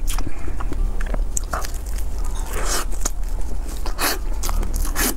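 Close-miked eating of a fruit-topped cake: bites and chewing at irregular moments, with the sharpest bites about three, four and five seconds in.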